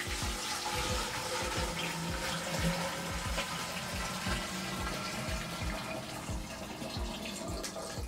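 Water pouring steadily from a plastic jug into a humidifier's top-fill water tank.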